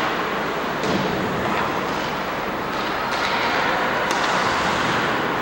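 Ice hockey game play in an indoor rink: a steady arena din with four sharp knocks spread through it.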